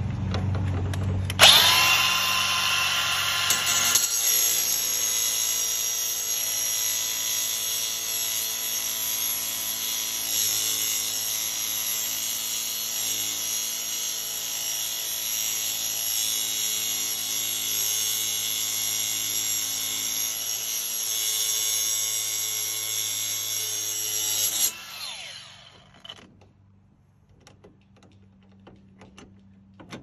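Cordless angle grinder with a cutting wheel spinning up with a rising whine about one and a half seconds in, then cutting into the shackle of a jammed padlock with a steady high whine and grinding hiss. About five seconds before the end it is switched off and winds down with a falling whine.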